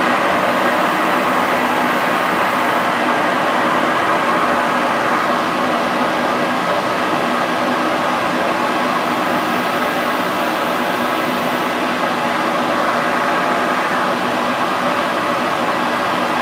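Steam locomotive No. 70 of the Dollywood Express standing and letting off steam in a loud, steady hiss.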